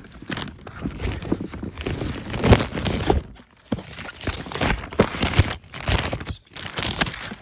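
Shipping packaging being torn open and crinkled by hand: an irregular run of crackling and rustling with sharper rips, pausing briefly twice.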